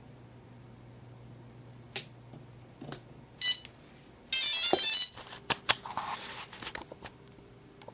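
Sharp clicks and electronic beeps from a quadcopter being reset: a short beep about three and a half seconds in, then a louder, longer high-pitched beep just after four seconds, with more clicks after it.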